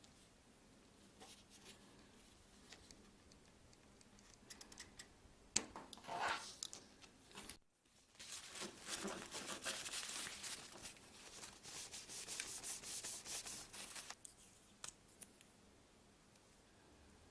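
Hands working small plastic parts: light clicks, then a short rasp, and after a sudden cut about six seconds of dense rubbing and scraping.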